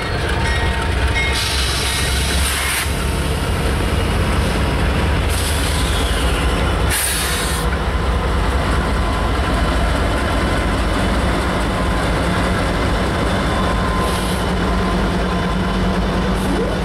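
Freight train diesel locomotives passing close by: a Norfolk Southern GE unit followed by a trailing Canadian National unit. Their engines run with a loud, steady low drone over wheel-on-rail noise, and a few short bursts of high hiss come in the first half.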